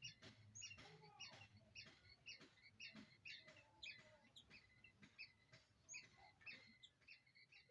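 Young zebra doves cheeping: a steady run of faint, high, short squeaks, about two or three a second.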